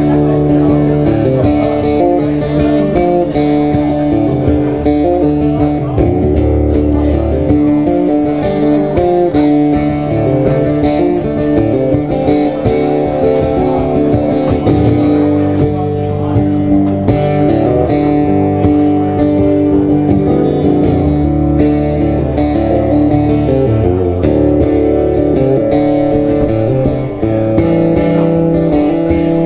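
Acoustic-electric guitar strummed steadily through chord changes, an instrumental passage with no singing.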